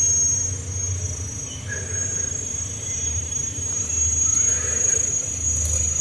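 Insects droning at a steady high pitch, over a low, wavering rumble.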